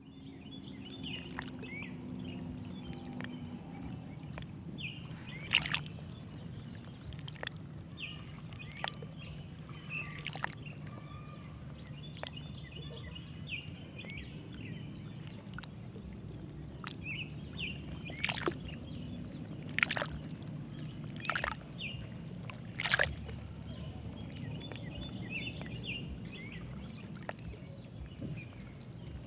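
Steady low hum with faint high chirping and a few scattered sharp clicks, most of them bunched together about two-thirds of the way in.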